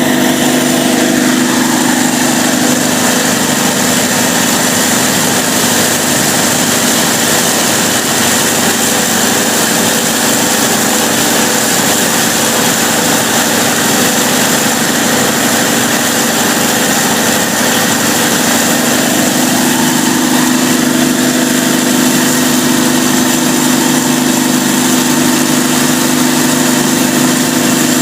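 Cummins KTA38-G4 diesel generator set, a V12 turbocharged engine, running steadily under load testing: a loud, even drone with a strong steady hum. Its tone shifts slightly near the start and again about twenty seconds in.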